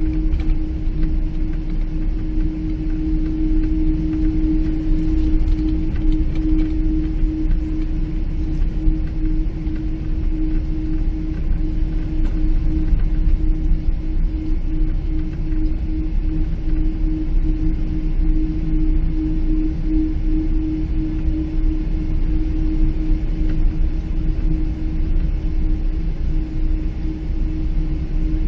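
Steady cabin noise inside a Boeing 777-300 airliner: a deep engine and airflow rumble with a constant hum, unchanging throughout.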